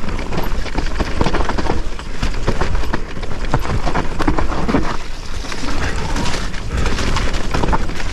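Mountain e-bike riding down a muddy forest singletrack: tyres rolling over roots and dirt, with the bike rattling and knocking over the bumps in a dense, irregular run of clicks, over a constant deep wind rumble on the helmet-mounted microphone.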